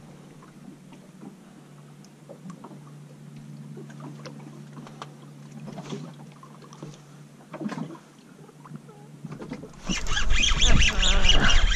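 Small clicks and taps of hands handling bait and a hook at a plastic bait bucket, over a low steady hum. About ten seconds in, a much louder rushing noise sets in abruptly.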